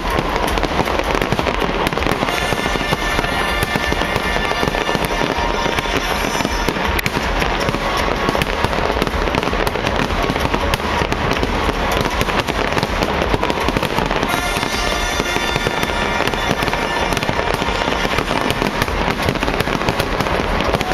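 Large fireworks display in its finale: a dense, unbroken barrage of bursting shells and crackling, many bangs a second.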